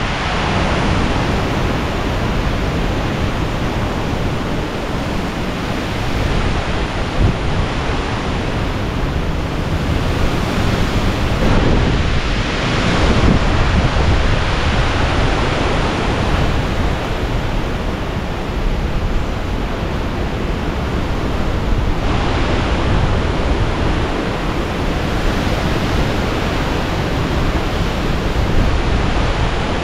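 Hurricane-force eyewall wind blowing hard and without a break, buffeting the microphone, with a stronger gust about twelve seconds in.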